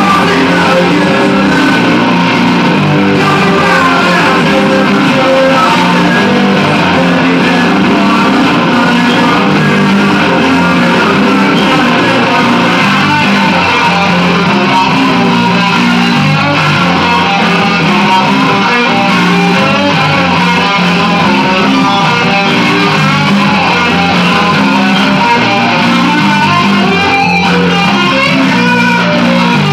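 Electric guitar playing an instrumental rock passage, loud and continuous.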